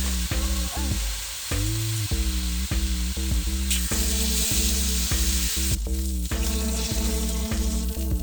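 Food sizzling and frying on a hot pan or grill, a steady hiss, under background music with a steady beat and bass line.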